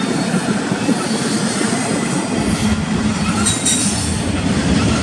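Double-stack intermodal container well cars rolling past with a steady rumble of steel wheels on the rails, and a brief high wheel squeal about three and a half seconds in.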